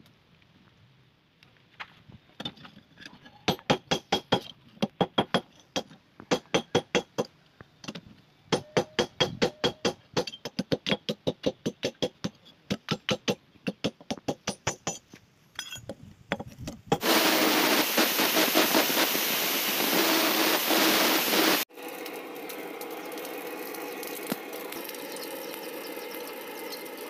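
Hammer striking steel on a small round steel anvil in runs of quick metallic blows, about four or five a second. Then, about two-thirds of the way in, a steady loud rushing of the blown charcoal forge fire, which after a sudden break carries on quieter.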